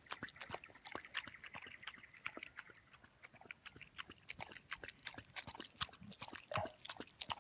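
Faint chewing: irregular crisp clicks and crunches of something being eaten.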